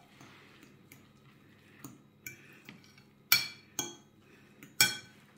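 A utensil clinking and scraping against a metal mixing bowl while stirring a wet filling of chopped vegetables and egg. There are a few light taps, then three sharper ringing clinks in the second half.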